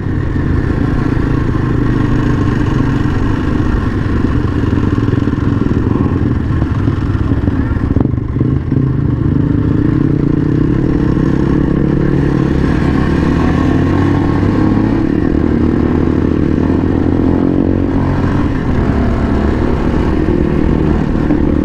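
Kawasaki KLX230's single-cylinder four-stroke engine running steadily as the motorcycle rides along, its pitch drifting only slightly.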